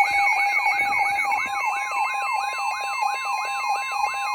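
Several electronic sirens sounding at once: a fast yelp that rises and falls about two and a half times a second over steady high-pitched tones and a warbling tone.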